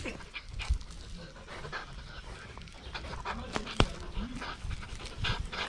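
Rottweiler puppy panting as she tugs at a rag tug toy, with short scuffling noises and a sharp click a little under four seconds in.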